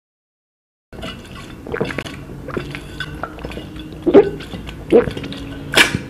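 Drinking from an insulated straw-lid water bottle: small clicks and handling of the bottle, then three loud gulps about a second apart near the end.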